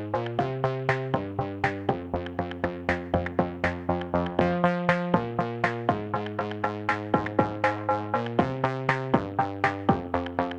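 Background music: an instrumental stretch of a pop song, synthesizer chords changing every second or so over a steady electronic beat.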